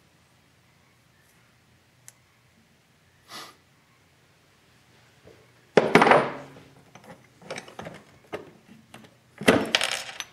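Steel transmission gears from a Maico 500 gearbox clinking and clattering as they are handled, slid off their shaft and set down on a wooden workbench. It is mostly quiet at first, then there are two louder metal clatters, about six and nine and a half seconds in, with lighter clinks between them.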